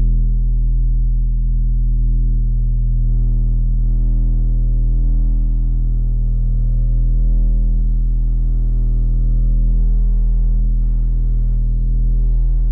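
Steady low humming drone: a deep, unchanging tone with faint overtones that shift slowly above it.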